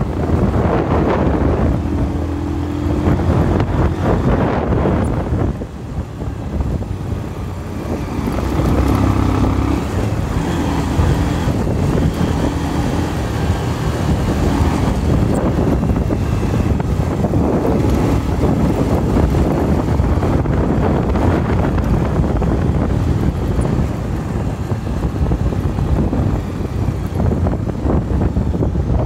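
Motorcycle on the move: engine running under steady wind rush on the microphone, with the engine note standing out briefly about two seconds in and again about eight seconds in.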